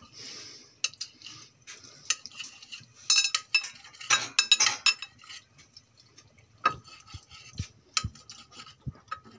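Kitchen knife clicking and scraping against a cut-glass plate while soft boiled goat brain is chopped into small pieces: irregular taps, with quick flurries of ringing clinks about three and four seconds in.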